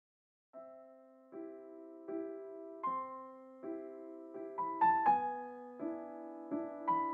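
Soft solo piano background music: slow single notes and chords, each ringing and fading, starting about half a second in.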